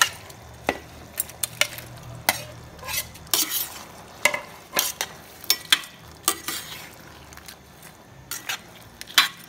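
Metal spoon stirring raw shrimp into a simmering tomato sauce in a pot, with irregular sharp clinks and scrapes of the spoon against the pot.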